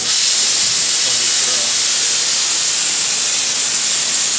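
Loud, steady hiss of a spray at a milling machine, stepping up in level right at the start.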